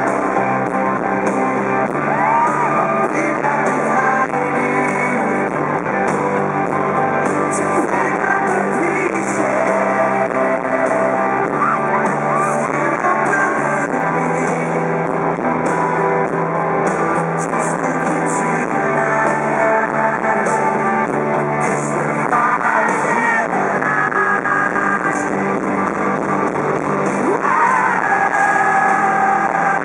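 Live rock band playing loud and steady, with electric guitar, drums and lead vocals. The sound is recorded from among the concert audience.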